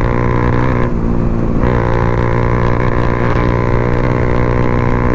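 Motorcycle engine running through an Akrapovič aftermarket exhaust with its dB killer removed, held at a steady engine speed while being ridden. Its sound briefly thins about a second in, then carries on at the same pitch.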